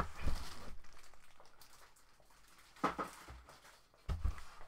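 Handling noise of a plastic-wrapped sewing machine being lifted out of its cardboard box: rustling packaging with a low thump near the start, a sharp click in the middle and another thump near the end.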